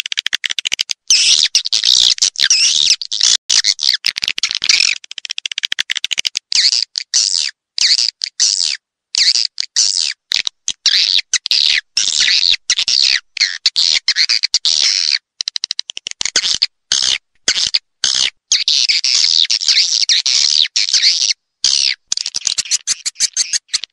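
Recorded swiftlet calls: dense, high-pitched twittering chirps, cut off by many abrupt brief silences. It is a swiftlet lure call, played to draw swiftlets into a swiftlet house.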